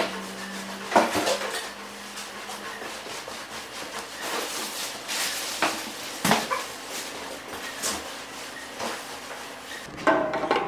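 Cloth rag rubbing and scraping across the perforated steel top of a welding table, with scattered knocks and clatter. A burst of sharp clicks and knocks comes near the end.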